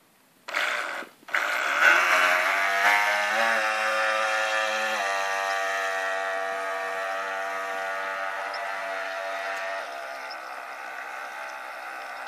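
Radio-controlled model yacht's electric motors starting with a whine: a short burst about half a second in, a brief cut, then a steady run that fades as the boat speeds away over the water.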